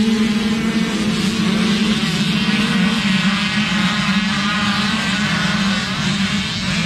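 A pack of small youth motocross bikes revving hard and accelerating off the start, many wavering engine whines overlapping, over a steady low engine drone.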